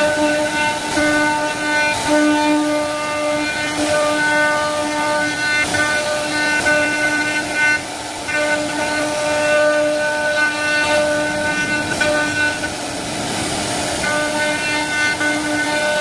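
CNC wood-carving router running, its spindle giving a steady, high-pitched whine over the rougher noise of the bit cutting wood. The upper part of the whine drops out briefly about halfway through and again about three-quarters of the way in.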